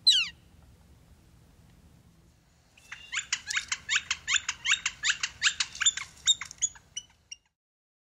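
Northern flicker calling. First comes one loud, short call that slides steeply down in pitch. About three seconds later it gives a rapid, even run of sharp notes, about six a second, which lasts some four seconds and then stops.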